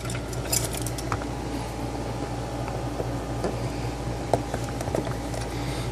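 A few small clicks and light scraping from a spudger prying at a multimeter's case while hunting for hidden screws, over a steady low hum.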